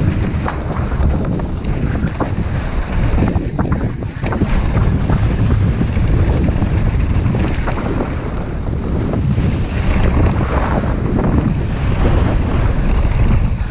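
Wind buffeting an action camera's microphone while a downhill mountain bike descends a dirt trail at speed, with tyre noise and the knocks and rattle of the bike over bumps.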